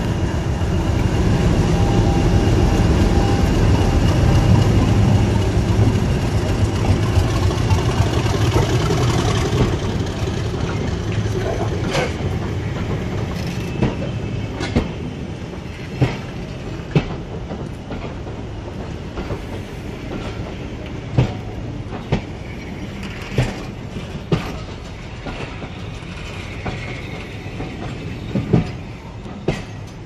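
British Rail Class 50 diesel locomotive 50042 pulling away at close range, its English Electric 16-cylinder engine running loud for about the first ten seconds, then fading as the carriages roll past. The carriage wheels clack over the rail joints in a series of sharp knocks, often in pairs.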